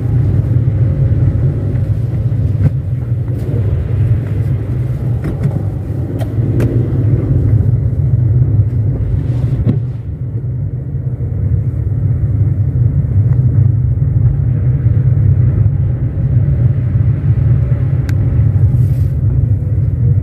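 A car driving on wet asphalt, heard from inside: a steady low rumble of engine and tyres, with a thinner road hiss above it that drops away about halfway through, and a few small clicks.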